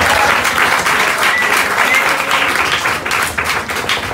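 Audience applause, with flamenco zapateado heel-and-toe taps from the dancer's shoes on the stage boards; the clapping eases off near the end and the separate foot strikes come through more clearly.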